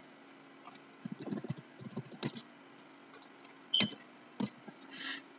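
Computer keyboard keystrokes and mouse clicks, scattered and irregular, with a few louder single presses in the second half.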